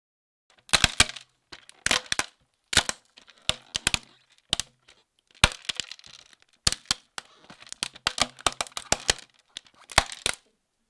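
Irregular series of sharp cracks and snaps, often in quick clusters of two or three, with faint rustling between them, starting about half a second in.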